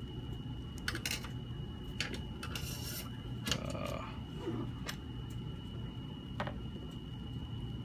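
Faint handling sounds from a hand working the knobs of an MFJ-259C SWR analyzer: a few scattered clicks and rubs, over a steady low hum and a thin steady high tone.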